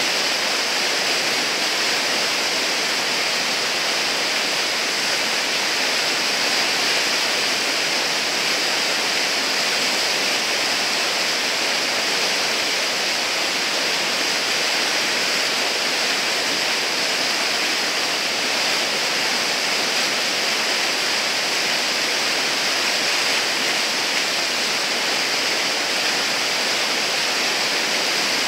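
Whitewater rushing steadily through a river hole, a continuous churning hiss of foaming water with no breaks.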